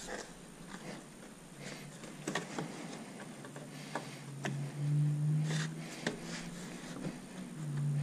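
Hands pressing a plastic frunk trim cover down on a Tesla Model S and pushing its push-clip fasteners into their holes: scattered clicks, taps and rubbing. A low steady hum comes in about halfway through, stops, and returns near the end.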